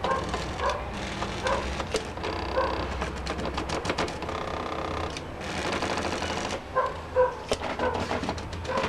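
Stepper motors of a homemade two-and-a-half-axis CNC pen plotter, built from scrap electronics, driving its axes: rapid clicking and ticking broken by short whining tones as the axes make short moves.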